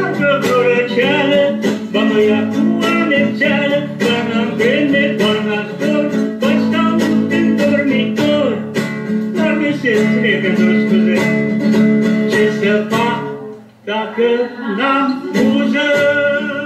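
Recorded song of a man singing to a strummed acoustic guitar. The music briefly drops out about 13 seconds in, then resumes.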